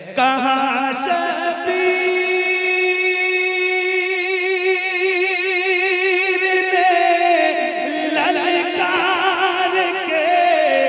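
A man singing a naat unaccompanied, amplified through a public-address sound system. He holds one long note with strong vibrato on the word 'kahan' for about seven seconds, then drops in pitch into quick ornamented turns.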